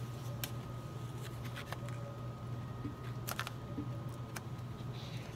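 A metal blade clicking and scraping against a 3D printer's plastic build plate as a glued print is pried off: scattered short ticks, a few close together about three and a half seconds in, over a steady low hum.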